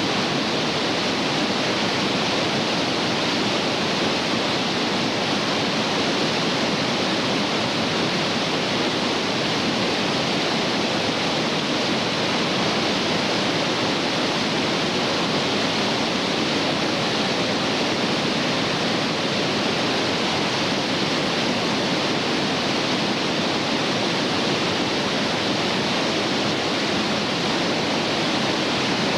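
Whitewater rapids rushing steadily, a creek running high (about 1820 cfs).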